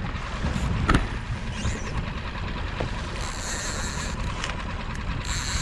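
Small outboard motor running steadily as the skiff trolls, mixed with wind and water noise. There is a single knock about a second in, and high-pitched buzzing comes in twice, about three seconds in and again near the end.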